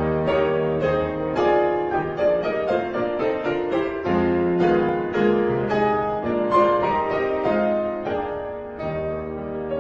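Classical piano music: a steady run of notes and chords.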